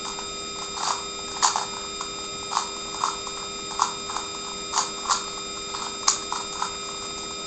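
A plastic Rubik's Cube being turned by hand during a solve, its layers clacking in short, irregular clicks about once or twice a second.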